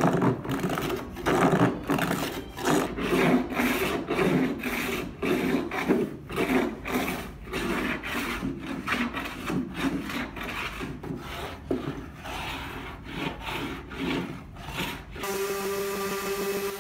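Hand plane taking shavings off a cherry panel in quick repeated strokes, about two a second. About fifteen seconds in, the strokes stop and a Porter-Cable random orbit sander starts and runs with a steady hum.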